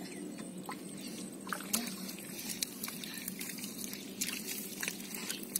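Eels squirming in a pot of muddy water: soft wet sloshing with scattered small clicks and splashes.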